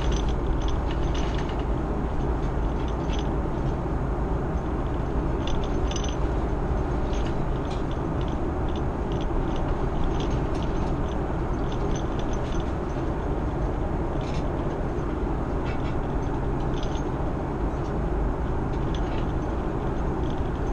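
Steady cabin noise of an Airbus A330-300 in flight: the even rush of airflow and engine drone, strongest in the low range, with faint light clicks now and then.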